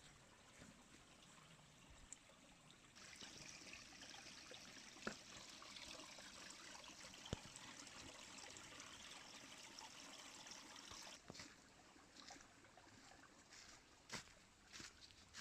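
Small stream trickling and flowing, faint. The water grows louder about three seconds in and drops back about eleven seconds in, with a few sharp clicks and knocks scattered through it, more of them near the end.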